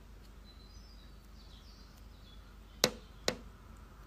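Quiet room tone, then two sharp clicks or taps about half a second apart, a little under three seconds in.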